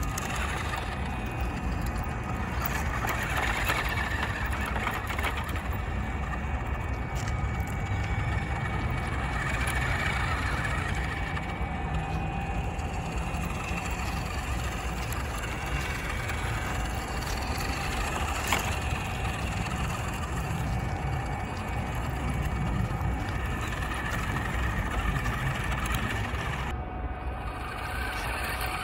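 A 1/10-scale RC mini pickup truck driving, its electric motor and gears giving a steady whine. Its tyres crackle over dry fallen leaves and dirt.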